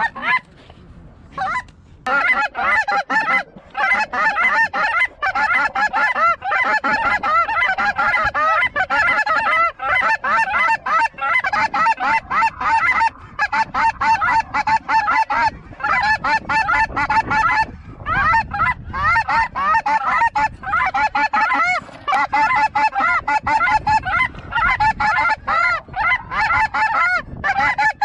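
Dense chorus of snow goose calls, many short high calls overlapping almost without a break, starting about two seconds in.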